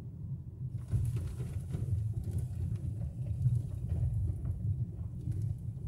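Low rumble of a car heard from inside the cabin. From about a second in, the tyres crackle and crunch over gravel as the car rolls onto a dirt pull-out.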